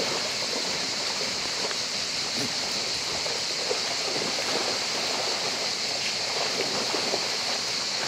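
A shallow river running steadily, with a herd of goats wading through it and splashing, heard as scattered short splashes over the even rush of the water.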